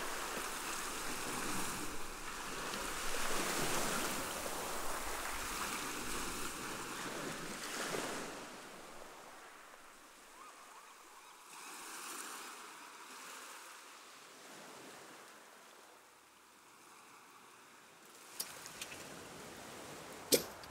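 Sea waves washing up a sandy shore and drawing back, in slow swells. After about eight seconds this gives way to a quieter stretch, with a few sharp clicks near the end.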